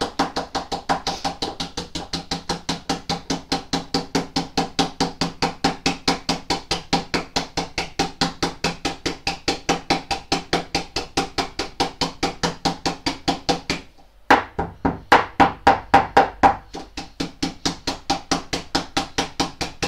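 Rapid, even tapping on a silicone mould filled with wet concrete, several knocks a second, done to drive air bubbles out of the concrete before it sets. The tapping stops briefly just before two-thirds of the way through, then resumes louder.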